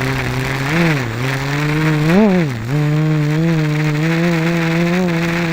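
GAUI 330X quadcopter's electric motors and propellers buzzing in flight, with a steady pitch that swings up and down as the throttle changes, in a sharp rise and fall about two seconds in.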